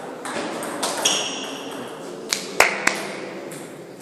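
Table tennis rally: sharp clicks of the celluloid ball off bats and table, then a high squeal lasting about a second. Near the end come three loud clicks, each closer to the one before, like a dead ball bouncing away.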